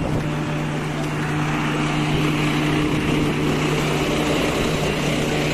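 Double-decker bus engine idling close by: a steady low hum, with a rush of noise growing louder about two seconds in.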